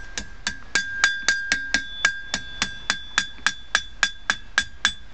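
Hand hammer striking hot steel on a homemade bick anvil made from a railroad spiking hammer, bending a curve into the end of a file. The blows come steadily, about four a second, and each leaves a high ring that carries on between them.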